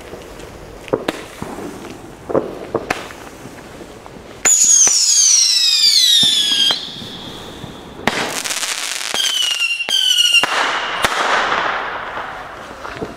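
Old whistling firework from 1996 going off: after a few faint clicks, a loud whistle starts about four seconds in and falls steadily in pitch for about two seconds. A few shorter falling whistles follow, then a crackling hiss that fades away.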